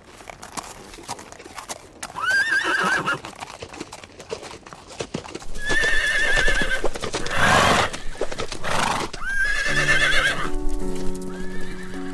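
An animal calling four times with a high, wavering call, over a running patter of clicks. Piano music comes in near the end.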